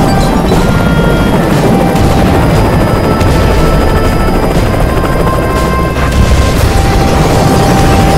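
Battle soundtrack: continuous helicopter rotor rumble and booming explosions mixed with music that has short held notes.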